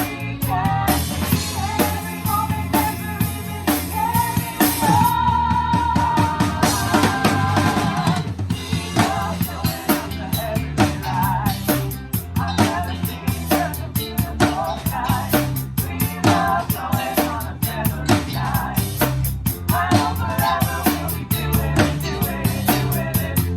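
Live band music with the drum kit to the fore: a steady beat of bass drum, snare and rimshots over bass notes and a melodic instrumental line, with no singing.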